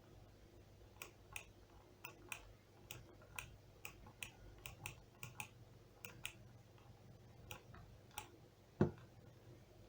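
Irregular light clicks, about one or two a second, made while earlier working is being rubbed out, with a single louder knock near the end.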